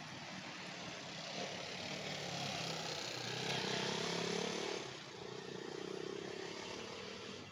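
A motorcycle engine approaching up the road and passing close by, louder to a peak about four seconds in, then dropping off.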